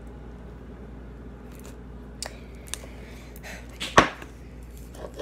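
Homemade glitter slime being stretched and pressed by hand into a plastic bowl. A few small sticky clicks come about two seconds in, then a loud slap about four seconds in and another near the end.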